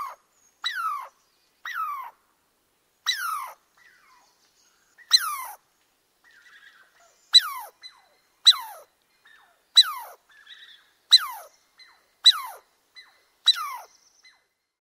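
An animal calling over and over: about a dozen short calls roughly a second apart, each falling in pitch, with a few fainter chirps between them in the second half.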